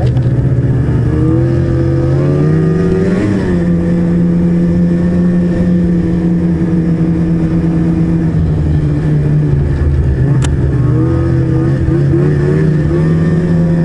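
Ski-Doo E-TEC two-stroke snowmobile engine running under way, heard from the rider's seat. Its pitch rises as it speeds up about three seconds in, then holds fairly steady with small dips. A single sharp click comes near ten seconds in.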